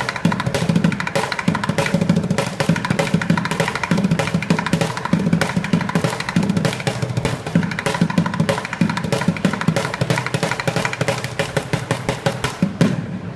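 Bucket drums: a busker playing fast, unbroken rhythms with drumsticks on upturned buckets, closing with a loud final hit near the end.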